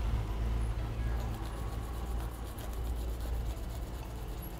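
Fresh ginger being scraped against a plastic hand grater in quick, repeated strokes over a pan, the strokes thinning out after the first few seconds, over a low steady rumble.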